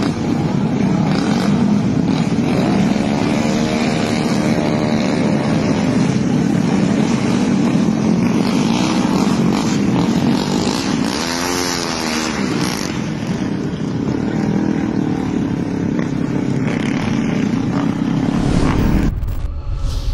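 A dense, continuous din of many motorcycle engines running and revving as a convoy passes along a road. About eleven seconds in, one engine's pitch swells and then drops. The din cuts off abruptly near the end.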